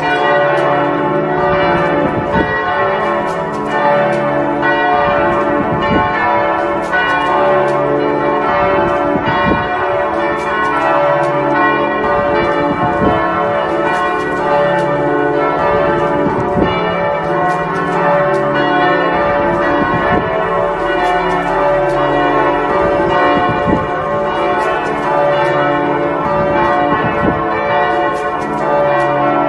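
Several church bells ringing together in a continuous peal, each struck again and again at an uneven rhythm so that their tones overlap and ring on.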